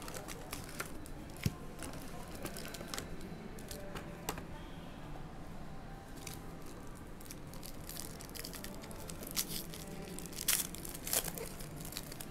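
Foil-wrapped trading-card packs crinkling as they are handled and lifted out of a hobby box, then a pack wrapper torn open, with the loudest crackling near the end.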